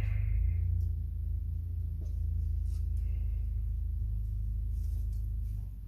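A steady low electrical-sounding hum, with a few faint light clicks over it.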